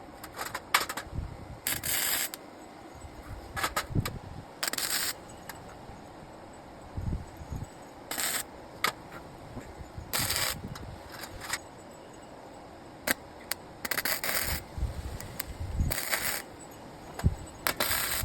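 Small metal pieces being handled, with clinks and scrapes, and a short burst of hissing noise every two to three seconds.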